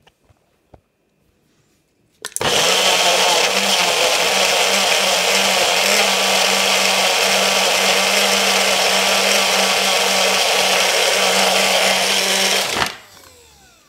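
A single-serve blender's motor running steadily, blending strawberries and ice cream into a milkshake. It starts about two seconds in after a few small clicks and cuts off about a second before the end, winding down.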